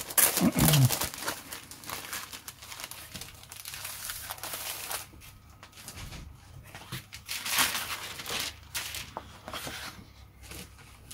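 Clear plastic bag crinkling as a large decal sheet is slid out of it, loudest in the first second or so, then lighter scattered rustles as the sheet is handled.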